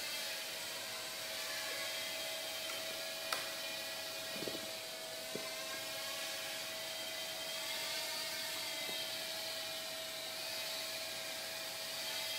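Blade Nano QX micro quadcopter in flight: its four tiny brushed motors and propellers whining, the pitch rising and falling as the throttle changes while it manoeuvres. A sharp click about three seconds in.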